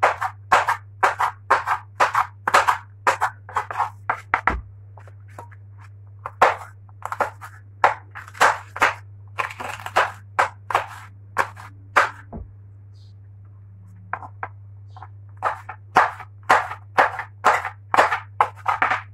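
Kitchen knife chopping a green bell pepper on a wooden cutting board: quick knife knocks on the board, about three a second, thinning out midway, with a pause of about two seconds before the chopping picks up again near the end. A steady low hum runs underneath.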